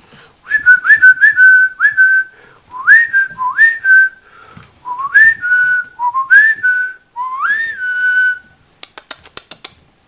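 A person whistling short calls over and over, in clusters of two to four. Each note glides quickly up and settles on a steady pitch. A quick run of sharp clicks follows near the end.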